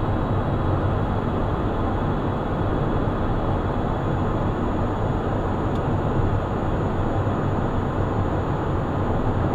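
Steady cockpit noise of a Cessna Citation 501 climbing at reduced climb power: a constant rushing of airflow and its twin Pratt & Whitney Canada JT15D turbofans, with faint high steady tones above it.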